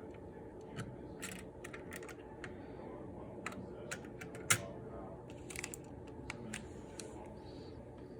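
Irregular light clicks and taps, with one sharper click about four and a half seconds in, over a steady low hum.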